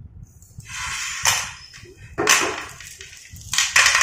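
Slate pencils clattering against each other as a hand rakes and scoops through a heap of them, in three bursts of dry, clicking rattle.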